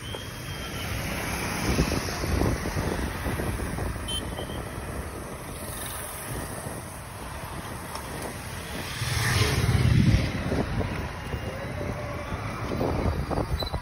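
Busy road traffic: motorcycles, scooters and cars passing with a steady engine and tyre noise. One vehicle passes close about nine to ten seconds in, the loudest moment.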